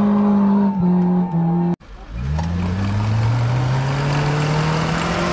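A steady droning tone that steps down in pitch twice, then cuts off abruptly about two seconds in. After the cut, an off-road vehicle's engine pulls under load, its pitch climbing slowly as it revs up.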